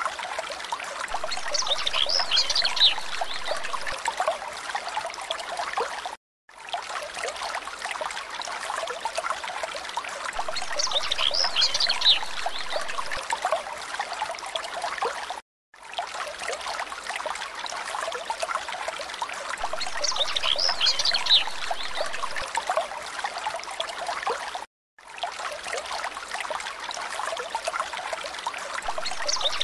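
Looped background ambience of a trickling stream, with a brief spell of high chirping once in each pass. The loop repeats about every nine seconds, with a short silent gap between repeats.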